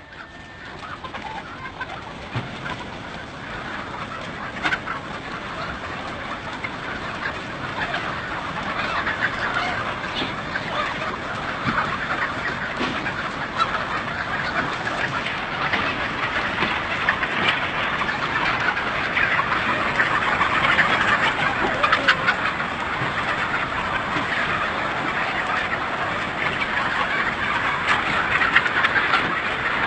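A large flock of chickens calling all at once, a dense din that grows louder over the first ten seconds or so as more birds come out of the coop, then holds.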